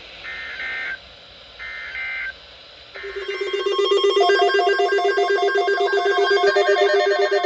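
Emergency Alert System end-of-message code: three short, identical data-burst squawks about a second and a half apart. About three seconds in, a loud, rapidly trilling alert tone starts and rings on steadily, like a telephone bell.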